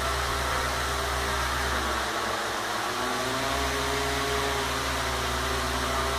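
A hexarotor's six electric motors and propellers whirring steadily under pitch-angle PID control. Around the middle the motor tones dip and shift in pitch as the motor speeds change.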